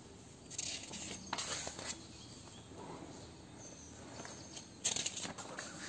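Pages of a paperback school textbook being turned and handled: faint paper rustling from about half a second to two seconds in, and again near the end.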